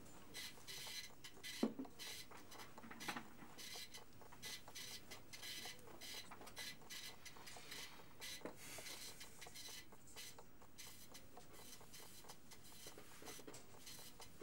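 Faint, irregular mechanical whirring in short passes, with gaps between them, and two soft knocks in the first few seconds.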